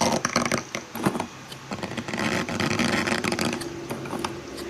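A drawing tool scratching rapidly across a surface as a square is filled in, with many small clicks over a low steady hum.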